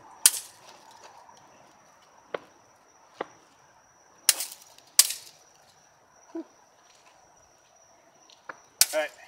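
Several sharp cracks, irregularly spaced and short, the loudest about four and five seconds in and just before the end. They sit over a faint, steady, high-pitched tone.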